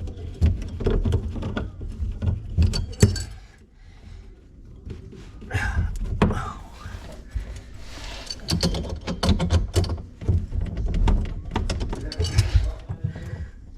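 Handling noise from plumbing work under a kitchen sink: scattered clicks and knocks of tools and fittings, with low thumps and rustling, quieter for a moment about four seconds in.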